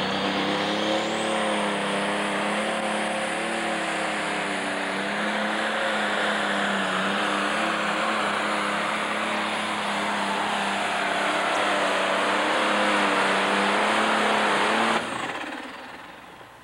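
Super Stock pulling tractor's alcohol-burning engine running flat out under the load of the weight-transfer sled, its pitch sagging slightly as the load builds. The engine sound cuts off sharply near the end.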